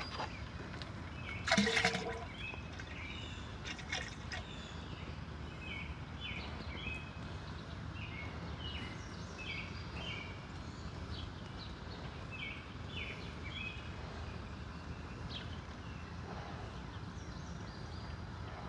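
Liquid fertilizer pouring from an upended plastic jug into a sprayer's poly tank, a steady trickling pour, with a brief louder knock about two seconds in. Birds chirp over it.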